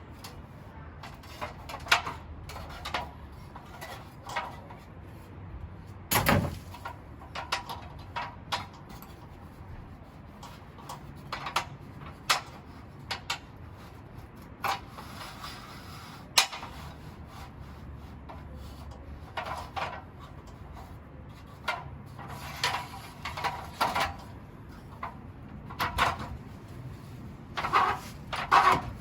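Irregular knocks, clunks and clatters scattered over about half a minute, loudest about six seconds in and again near the end, over a low steady background.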